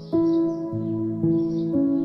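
Calm ambient background music: sustained notes with a new note or chord struck about every half second, and faint bird chirps mixed in.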